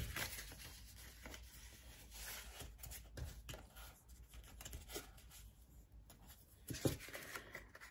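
Faint scraping of a bone folder drawn along the fold lines of a paper pouch, with paper rustling and a few light knocks.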